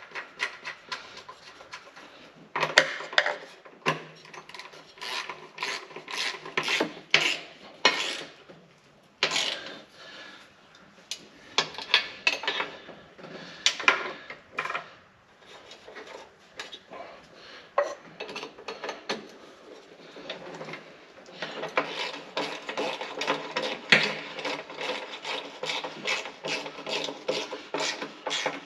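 Hand socket ratchet clicking in quick runs of strokes as nuts are run down onto the aftercooler housing studs. The clicks come in short bursts through the first half, then in a longer, fast, even run in the last third.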